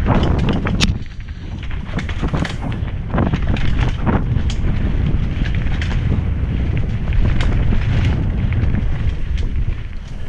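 Wind buffeting the microphone of a helmet-mounted camera during a fast mountain-bike descent on a dirt trail, a steady low rumble. Frequent short clicks and rattles from the bike run through it as it goes over the rough ground.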